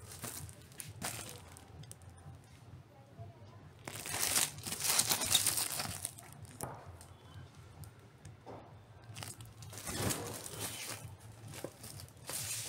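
Clear plastic record covers crinkling and rustling as vinyl LP records are handled and turned over, in two longer bursts about four and ten seconds in, over a steady low hum.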